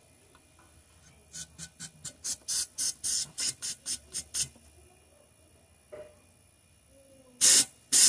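Short hissing spurts of pressurised gas and flushing liquid blowing out of a refrigerator plate evaporator's outlet tube into a plastic bottle: a quick run of about four a second for three seconds, then after a pause a louder blast near the end.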